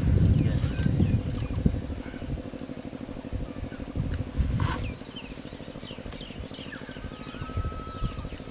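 An engine runs steadily with a low, evenly pulsing drone, with birds chirping over it; the low rumble is louder in the first two seconds.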